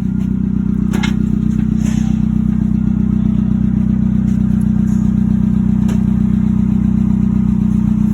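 A vehicle engine running steadily at a constant speed close by, with a few light clicks over it.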